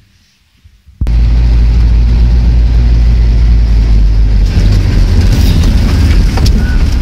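Loud in-cab rumble of a car driving over a bumpy dirt field track: engine and road noise with knocks and rattles from the body. It starts abruptly about a second in, after a brief quiet fade.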